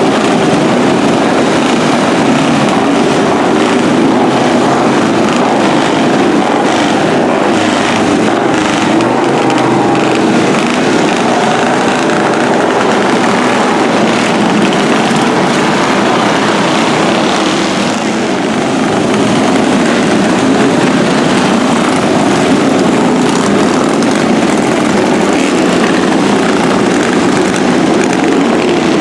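Historic motorcycle engines running together in a steady, dense drone.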